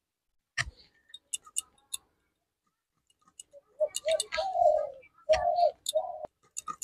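Garlic being sliced on a boti blade: a few crisp clicks in the first two seconds. Then, from about four seconds in, a bird calls several times in short pitched calls, which are the loudest thing heard.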